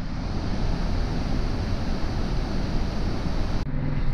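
Steady rushing roar of the waterfall and its white-water rapids. About half a second before the end the sound turns duller and a low steady hum comes in.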